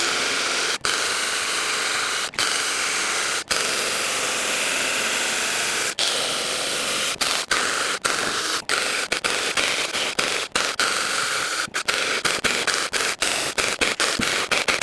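Battery-powered 6-inch mini chainsaw running as it cuts wood, its motor cutting out for split seconds, rarely at first and then more and more often toward the end, as the battery runs flat.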